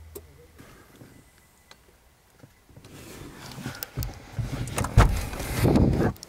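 Quiet at first, then from about three seconds in, rustling, clothing and handling noise with several knocks and a loud thump about five seconds in, as people climb out of a car and a car door opens.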